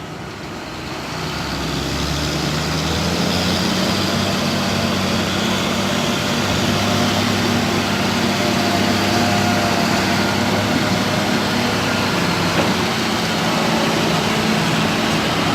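Heavy diesel engine running hard, swelling over the first couple of seconds and then holding at a steady, loud drone.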